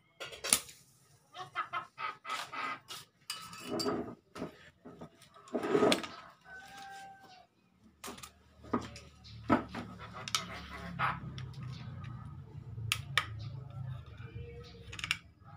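Chickens clucking, among sharp clicks and knocks of hand tools on a CRT TV's circuit board while its vertical IC is being desoldered and pulled. A low steady drone comes in about eight seconds in.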